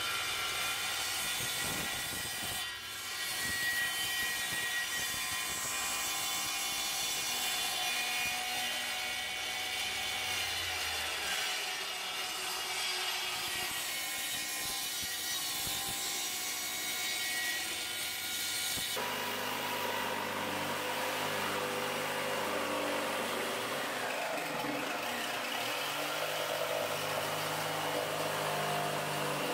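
Table saw running and cutting through plywood. About two-thirds of the way through, the sound changes abruptly to an electric jigsaw cutting plywood.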